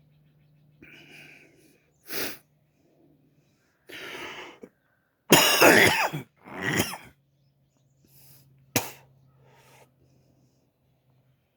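A person coughing in a fit: a run of about half a dozen coughs spread over several seconds, the loudest and longest about halfway through.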